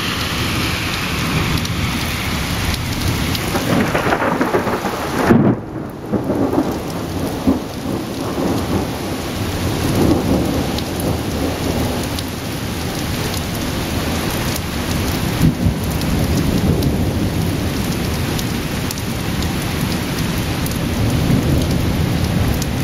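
Thunder rumbling over steady rain, with the loudest peak about five seconds in and further swells of rumble later.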